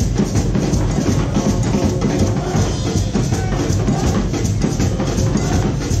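Guadeloupean carnival street band playing loud, drum-heavy parade music with a steady beat.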